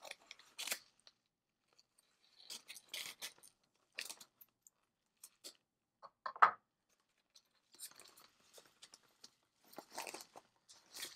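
Scissors cutting open a paper padded mailer, then the envelope being pressed and handled, giving short bursts of paper crinkling and rustling, with one louder crackle about six and a half seconds in.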